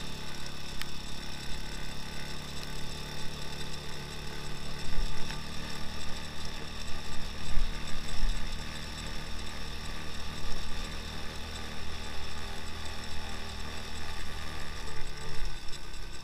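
Two-wheel-drive all-terrain motorcycle's engine running at a steady pace while riding, with wind rumbling on the microphone.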